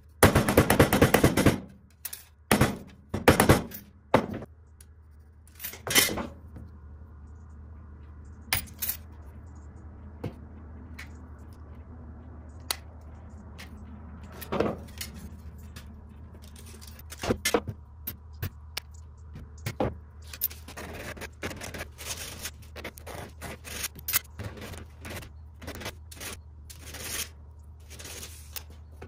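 Hammer striking a thin strip of sheet metal on a workbench: a quick run of blows at the start, then single blows a second or more apart. Later come scattered clicks as the strip is worked with tin snips, over a steady low hum.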